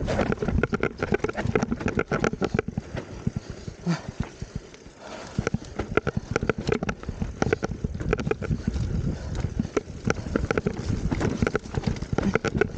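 Downhill mountain bike clattering over a rough, rutted dirt trail: dense, irregular knocks and rattles from the bike, over tyre and wind rumble. It eases briefly to a quieter run a few seconds in.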